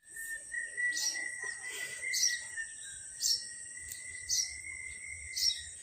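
A bird chirping in short, falling calls about once a second, over a steady high-pitched drone.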